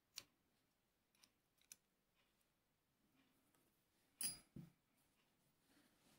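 Faint, scattered clicks of small steel flintlock parts being handled, with a brief metallic clink about four seconds in, the loudest sound.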